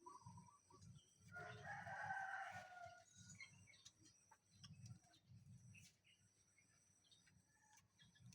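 A rooster crows once, faintly, starting about a second in and lasting under two seconds, with low dull thumps underneath.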